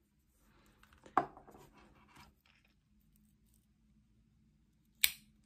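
Freshly oiled multi-tool pocketknife being handled and worked: soft rubbing and a small click about a second in, then a single sharp metallic click near the end.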